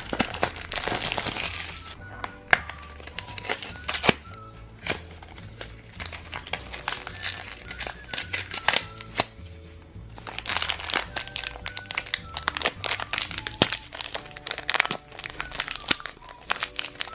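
Plastic packaging of a Shopkins blind basket crinkling and clicking as it is unwrapped and opened, in irregular bursts of crackle, busiest at the start and again toward the end, over light background music.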